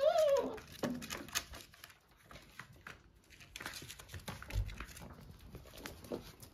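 A whippet puppy gives a short whining yelp that rises and falls, then light clicks and taps of puppy claws and paws on a hard floor.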